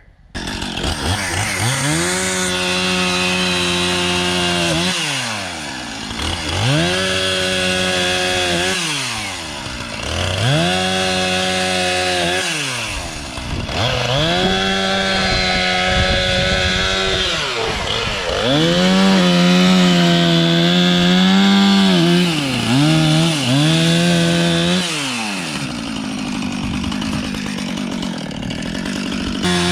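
Two-stroke chainsaw revved up and down over and over, each time rising from a low idle to a steady high run for a few seconds, then dropping back.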